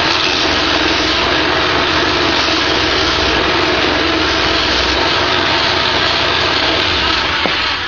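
Wood lathe running steadily while 80-grit sandpaper is held against the spinning cherry bowl: a continuous hiss over the motor's low hum, easing slightly near the end.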